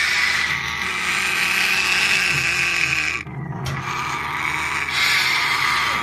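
African grey parrots in a nest box making continuous harsh, hissing calls, with a short break about three seconds in.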